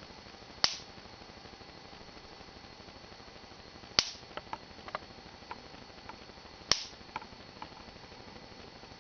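Sparks from a homemade five-stage voltage multiplier snapping across a one-centimetre gap between its output wires: three sharp snaps a few seconds apart, with fainter ticks of smaller sparks between the second and the third.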